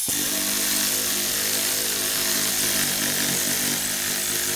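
Pneumatic air ratchet running steadily, its motor whirring under a hiss of exhaust air, as it turns out a tight wheel hub bearing mounting bolt.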